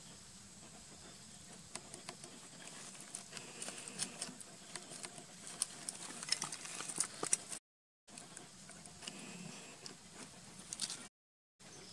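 Pebbles and dry leaves clicking and rustling under a baby monkey's hands and feet as it scrambles over stony ground: scattered light ticks, thickest from about four to seven seconds in. The sound cuts out to silence twice, briefly, near eight seconds and near eleven.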